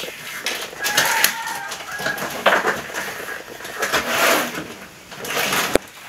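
Monitor box and its packaging being opened and handled: irregular rustling and scraping of cardboard and plastic wrap, with a sharp click near the end.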